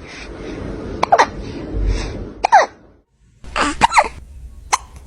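A person hiccuping: about six short, sharp hiccups, each a quick falling 'hic', with a brief silent gap about three seconds in.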